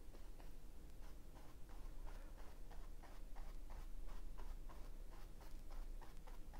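Paintbrush on stretched canvas: quick, short, light strokes in acrylic paint, about three a second, scratching softly as a woven straw texture is laid in.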